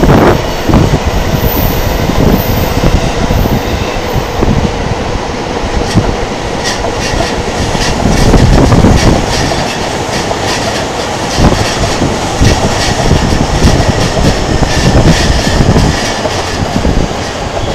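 Electric commuter trains running through Tokyo Station, heard from high above the tracks as a steady rumble. From about six seconds in, wheels click rhythmically over rail joints, with a faint high wheel squeal.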